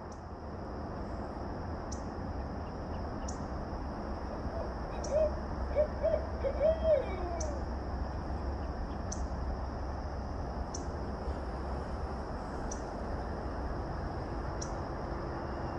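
Barred owl hooting: a short series of about five hoots about five seconds in, the last one sliding downward.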